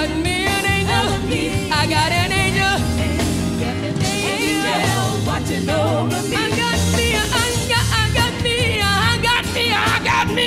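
Live gospel music: a woman's lead vocal with wavering, sliding runs over a band of drums, bass and keyboard, with backing singers.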